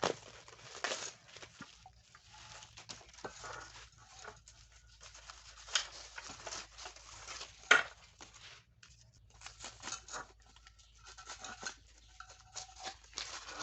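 Irregular rustling, scraping and small clicks of things being handled, with a sharper knock about 6 s in and a louder one near 8 s in.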